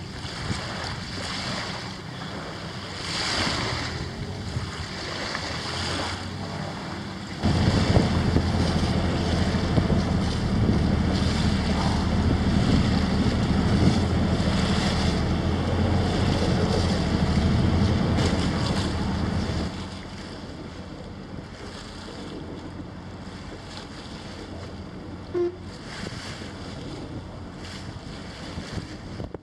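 Wind and small waves on open water. For a long stretch in the middle, wind buffets the microphone with a heavy, deep rumble. Before and after that stretch, the wind and water are quieter.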